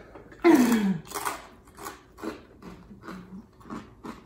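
A person's drawn-out groan that falls in pitch, then a string of short breathy huffs, reacting to a mouth burning from very spicy Korean seaweed.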